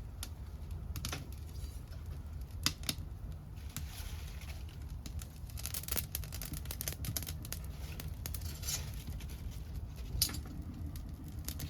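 Scrap-wood fire crackling, with scattered sharp pops and snaps over a low steady rumble.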